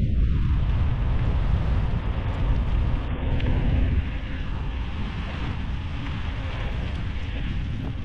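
Wind buffeting the microphone while riding a bicycle: a steady low rumbling rush that drops a little in level about halfway through.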